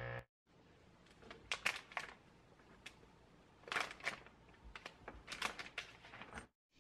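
Faint handling noises: scattered short clicks and rustles of rubber tubing being pushed onto a vacuum-bag port and of thin plastic bag film crinkling. A steady hum cuts off suddenly just after the start.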